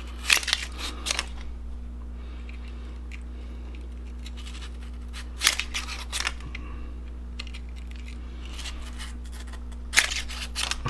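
Brass bore brush scraping through the chambers of a Heritage Rough Rider .22 LR revolver cylinder, scouring out carbon build-up. It comes in three short bursts of scraping strokes about five seconds apart, over a steady low hum.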